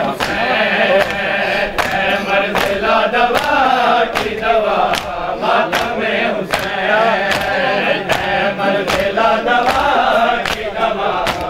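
A group of men chanting a nauha in chorus, kept in time by rhythmic matam: open hands striking bare chests together, about three strikes every two seconds.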